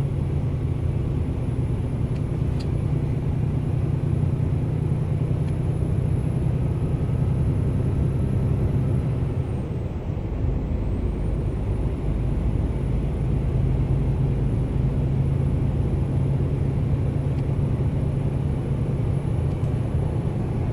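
Turbocharged engine running with a high, thin turbo whistle over the engine's low drone; about halfway through the whistle drops in pitch as the engine eases off, then climbs back and holds steady as it pulls again.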